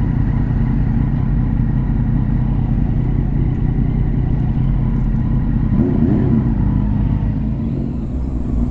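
Car driving, a steady low rumble of engine and road noise. About six seconds in, a brief tone rises and falls over it.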